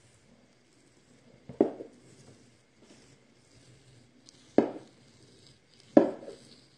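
Large kitchen knife cutting through raw wild boar rib meat and fat on a wooden cutting board, with three short knocks on the board, about one and a half, four and a half and six seconds in.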